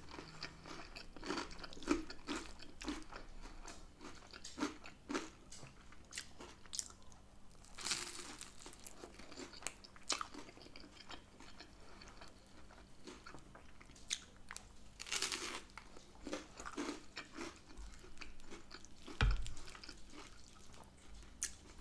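Close-up crunching and chewing of crisp garlic bread topped with spaghetti bolognese, with scattered small mouth clicks and a few louder crunchy bites. A brief low thump comes near the end.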